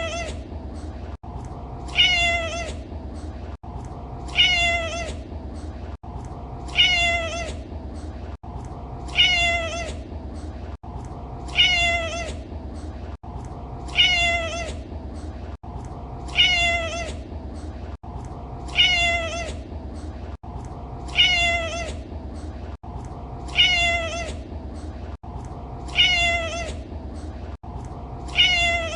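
A domestic cat meowing over and over, one short meow about every two and a quarter seconds, each one identical, as in a looped recording. A steady low background noise lies under the meows.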